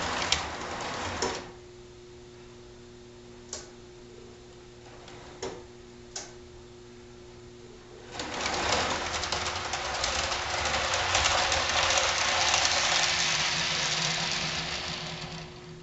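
HO scale model freight cars rolling down the hump onto a yard track, a busy clattering of small wheels on rail that builds from about eight seconds in and dies away near the end. Before that there are a few sharp clicks, and a steady faint hum runs underneath.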